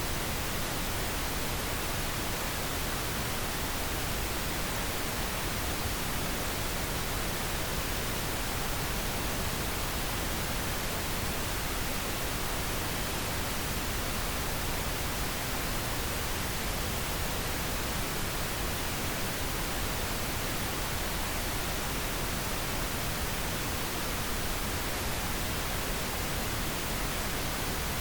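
Steady pink noise: an even, unchanging hiss spread across the whole range of pitch, generated as a sleep aid.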